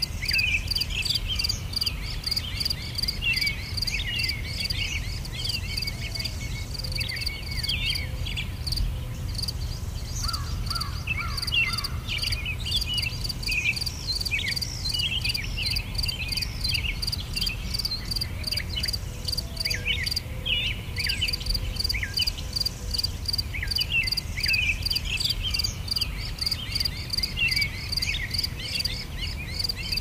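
Crickets chirping in a steady pulsed trill, with birds giving many short, quick chirps over a low rumble.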